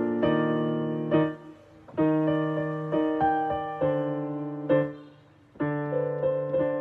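Background piano music: chords struck about once a second, with two short pauses.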